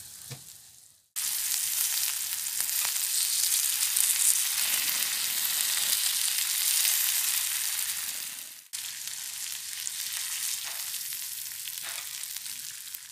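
Spice-coated beef pieces sizzling as they fry in hot oil in a pan: a steady hiss that cuts in suddenly about a second in, breaks off for a moment past the middle and goes on a little quieter, with a few faint clicks.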